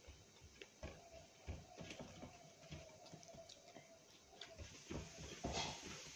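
Eating rice by hand from a metal plate: fingers gathering rice against the plate and chewing, heard as soft, irregular clicks and taps.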